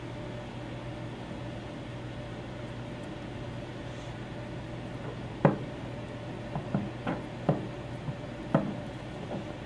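Handling noise as a rubber O-ring is fitted into a brass hydraulic end cap: about seven light clicks and taps of the metal cap against the tabletop and gloved fingers, starting about halfway through, over a steady low hum.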